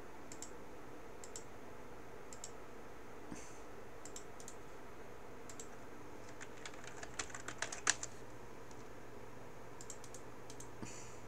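Computer mouse and keyboard clicks: scattered single clicks about once a second, then a quick run of keystrokes about two-thirds of the way through, loudest at its end.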